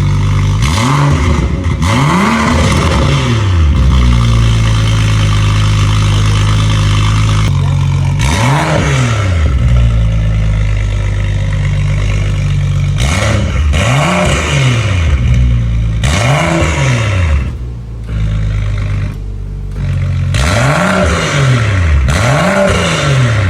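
A BMW 535i's N55 turbocharged inline-six idles through an aftermarket valved exhaust and is blipped about eight times. Each rev rises quickly and drops back to idle, some coming in quick pairs.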